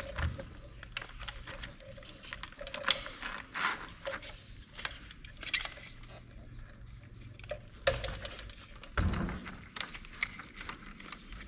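Scattered light clicks and knocks of plastic parts being handled as a fuel pump is worked out of its plastic reservoir bucket, over a faint steady low hum.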